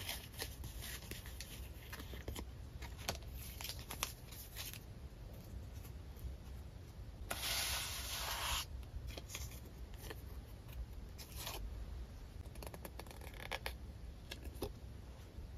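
Paper collage pieces (printed cards and die-cut paper stickers) being handled: crackling, sliding and tapping on a journal page in many short sounds. Roughly halfway through there is a louder, longer paper rubbing sound lasting over a second.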